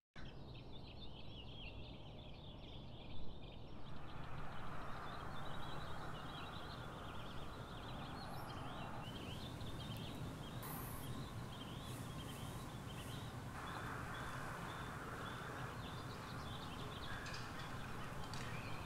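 Outdoor forest ambience with many small birds chirping over a steady low background hiss. The background changes character several times.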